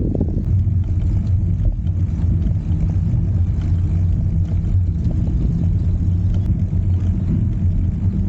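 A motor vehicle's engine running at a steady pitch, a continuous low rumble.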